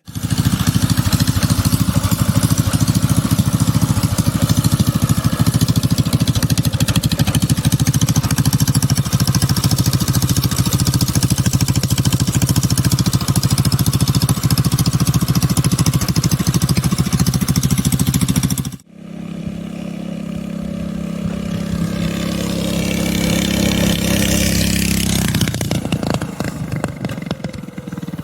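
Mini bike's small engine running hard at a steady speed under riding; after a sudden break about two-thirds through, it is heard again rising in pitch as it speeds up, then dropping off near the end.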